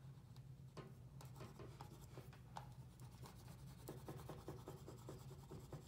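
Faint scratching of an oil pastel rubbed across paper in quick, short back-and-forth strokes.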